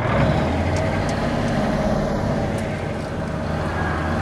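Semi-truck's engine running with a steady low drone as the tanker rig drives by.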